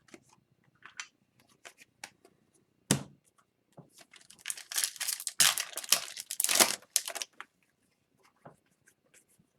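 Trading cards and their packaging being handled on a table: scattered light clicks, a sharp tap about three seconds in, then a few seconds of dense rustling and crackling.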